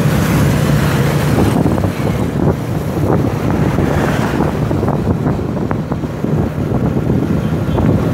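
Wind buffeting the microphone of a handheld camera, a loud uneven low rushing, with street traffic such as motorcycles underneath.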